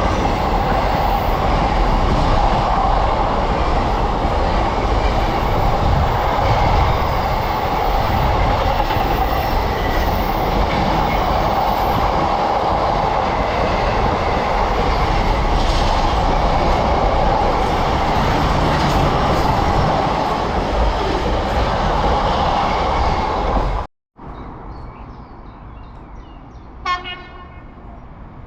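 Freight train passing close by, a loud steady rush of wheels and wagons on the rails. About 24 seconds in it cuts off abruptly to a much quieter background, with one brief pitched tone near the end.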